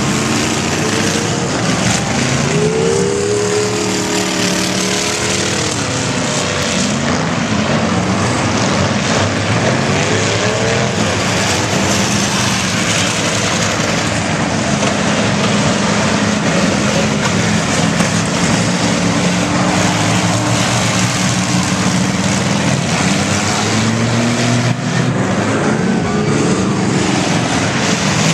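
Several demo cross race cars' engines running and revving as the pack laps the track, a loud, continuous din in which engine pitches rise and fall over and over.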